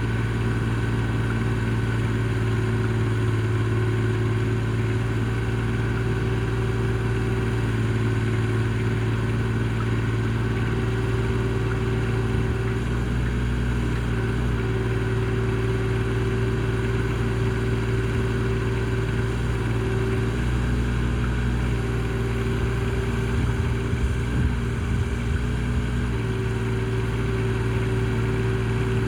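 Engine of a Vote Chinese mini excavator running steadily, with its note shifting a few times as it works.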